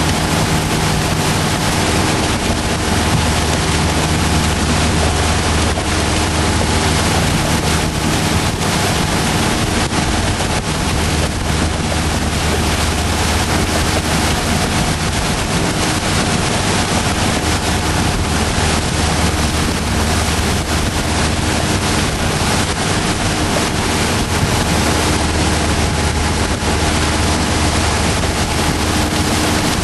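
Motorboat engine running steadily at towing speed, with the rush of wind on the microphone and the churning wake behind the boat.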